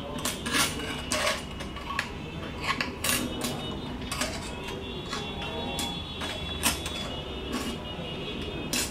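Thin metal cookie-press shape discs clicking and clinking as they are set down and slid about on a wooden tabletop: many light, irregular taps.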